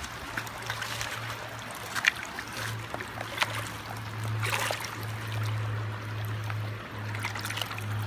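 Stream water trickling and sloshing through a gold pan, with a few small splashes over a steady low hum.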